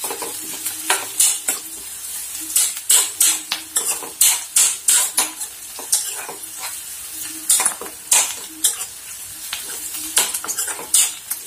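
A steel spoon stirring and scraping around a steel kadai in repeated, irregular strokes, over the steady sizzle of chopped onion, green and red chillies and curry leaves frying in oil.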